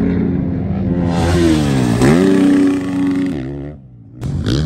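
Dirt bike engines revving hard, the pitch sweeping down and back up about two seconds in. The engine sound drops away briefly near the end before another loud burst.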